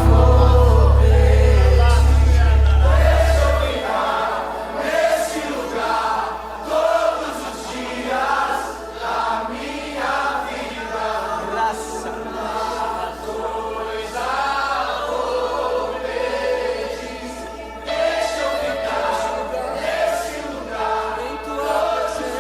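Gospel worship music: a choir of voices singing over instrumental accompaniment. A deep sustained bass note drops out about four seconds in.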